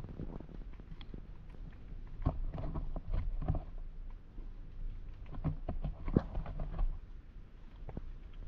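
Muffled underwater sound picked up by a submerged GoPro: a steady low rumble with irregular clusters of knocks and clicks, around two to three and a half seconds in and again from about five and a half to seven seconds.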